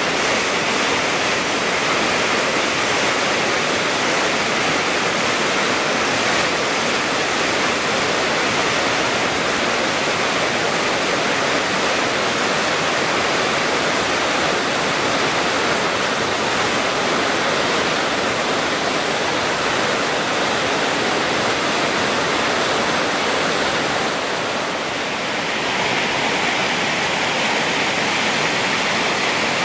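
River rapids rushing through rocky chutes: a loud, steady white-noise roar of whitewater, dipping slightly about 25 seconds in before continuing.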